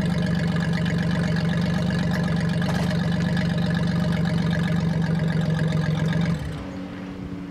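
Four-cylinder dirt-track race car engine idling steadily, then cut off abruptly about six seconds in, leaving a fainter steady hum.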